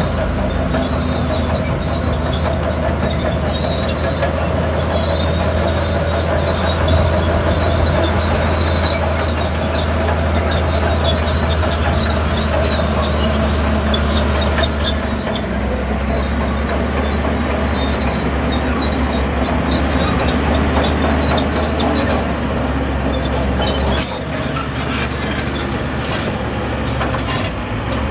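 A Zoomlion bulldozer's diesel engine running hard, with its steel crawler tracks clanking and squealing. The engine note shifts a little past halfway and eases off slightly about 24 seconds in.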